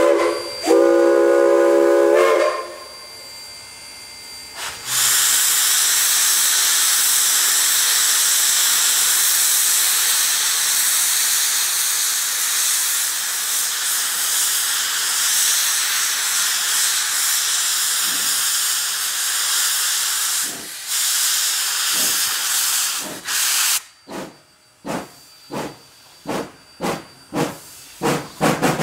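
Rio Grande Southern #20's steam whistle ends one blast and then sounds a second, about two seconds long. A few seconds later a long, steady hiss of steam sets in and runs for nearly twenty seconds. Near the end the hiss stops and the locomotive's exhaust chuffs begin, about two a second and slightly quickening.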